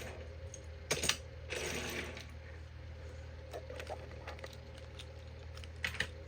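Small die-cast metal toy vehicles being handled and set down: a few sharp clicks and clinks with a short scraping slide, over a steady low hum.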